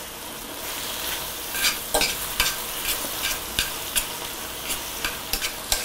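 Fresh spinach sizzling as it wilts in a hot stainless steel skillet, stirred and turned with metal tongs. Irregular sharp clicks of the tongs against the pan sound over a steady hiss.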